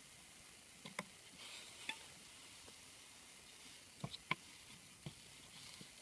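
A few faint clicks and taps as hands handle a stick-and-string trap trigger over a PVC pipe grid, above a steady high hiss. The loudest is a pair of quick taps about four seconds in.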